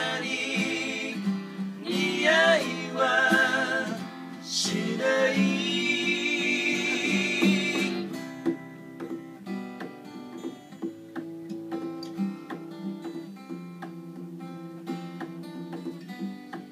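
Acoustic guitars played under voices singing. About halfway the singing stops and the guitars carry on alone, softer, in picked notes.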